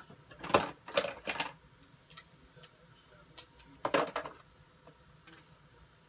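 Clattering knocks of hard objects being handled: three sharp clacks in the first second and a half, then another cluster about four seconds in.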